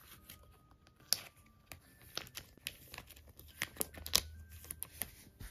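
Clear plastic photocard sleeves and binder pocket pages crinkling and crackling as cards are pulled out of the pockets and handled. The sound is an irregular string of sharp crackles.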